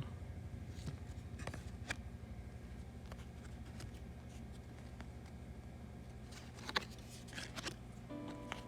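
Soft scattered rustles and clicks of trading cards being handled, over a low steady hum. Background music begins near the end.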